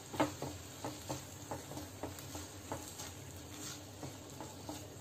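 Silicone spatula stirring sliced onion and capsicum in a sauce in a nonstick frying pan: soft, irregular taps and scrapes about three a second over a faint sizzle.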